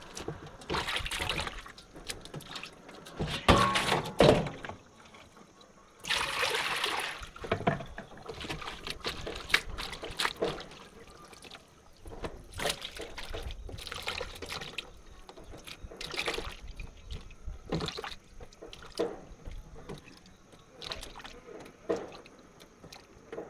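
Water pouring and sloshing in irregular bursts, with small knocks and clicks, as wild mushrooms are washed clean of soil. A longer pour runs about six seconds in.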